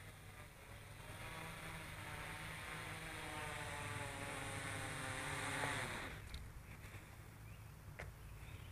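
Quadcopter's electric motors and propellers whining, the pitch rising and falling with the throttle while it hovers, then stopping about six seconds in. A low rumble runs underneath, and there is a single sharp click near the end.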